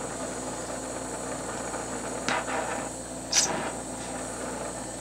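Glassblowing torch flame hissing steadily, with two brief sharp sounds about two and three and a half seconds in, the second one higher-pitched.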